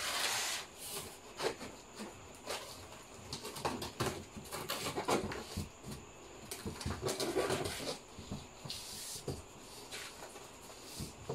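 Packing tape being peeled and cardboard flaps and bubble wrap rustling as a large carton is worked open by hand, in irregular scrapes and crackles.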